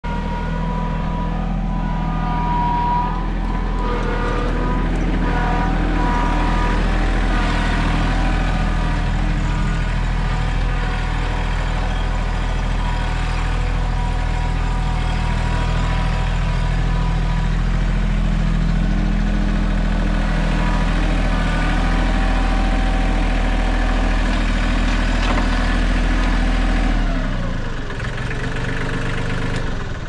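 Mahindra 1626 compact tractor's diesel engine running steadily under load, with a whine that rises and falls as the backhoe hydraulics are worked. The engine note falls away near the end.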